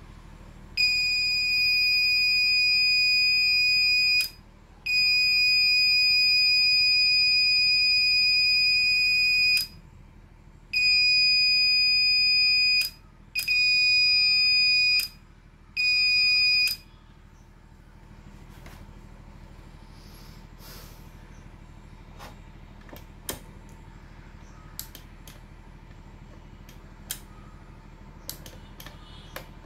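Microtek inverter's buzzer sounding a steady, high-pitched beep in five long stretches of about one to five seconds each, then falling silent about seventeen seconds in: the continuous beep of its overload warning. Afterwards only a low hum and a few light clicks.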